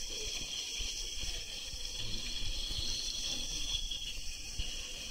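Water rushing down an enclosed tube water slide as a rider slides through it: a steady hiss with irregular low bumps.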